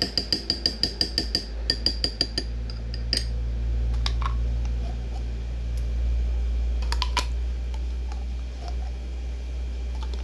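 Metal spoon clinking quickly against a ceramic bowl, about five strikes a second, for the first two and a half seconds. Then a few single clinks follow as mustard is scooped from its jar into the bowl.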